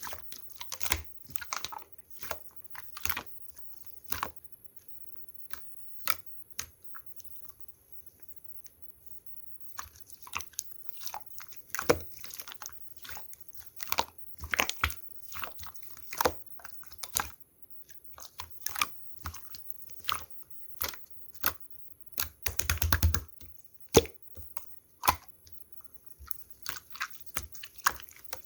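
Slime being pressed, poked and squished by hand, making irregular sticky clicks and pops. There is a short pause about eight seconds in, and a quick run of crackling pops near the end.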